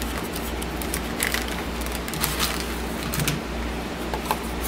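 Hands rummaging in a small cardboard box and handling a plastic-wrapped cable: scattered light crackles and clicks of plastic and cardboard over a steady low hum.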